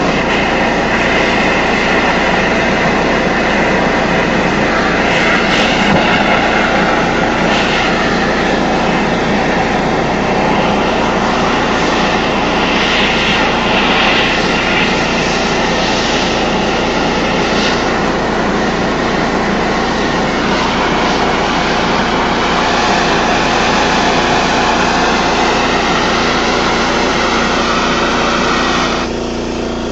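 Propane melting torch burning with a loud, steady rushing roar as it melts brass in a small furnace; the noise drops near the end as the torch is shut down.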